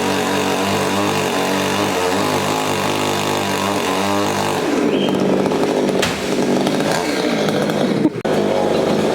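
Chainsaw engine running at a steady pitch, then revved up and down from about halfway, with a brief dip near the end, during the felling of a coconut tree.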